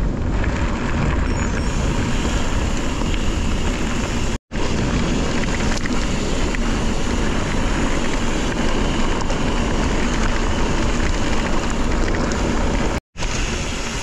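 Wind buffeting the microphone over the rolling noise and rattle of a mountain bike ridden along a dirt trail. The noise is loud and steady and cuts out completely twice for an instant, about four and thirteen seconds in.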